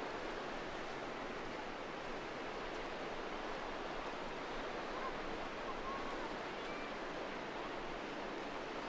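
Steady wash of sea surf along the shore, mixed with wind, with no distinct events standing out.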